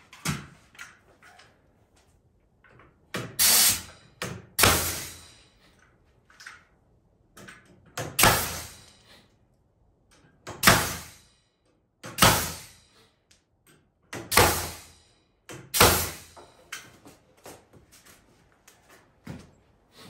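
A series of sharp knocks on the wooden sawbuck frame, about eight loud ones spaced a second or two apart, each fading over about half a second, with smaller clicks between them.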